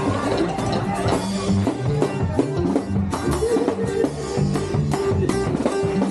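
Band music with guitar, bass and drums playing a steady dance beat.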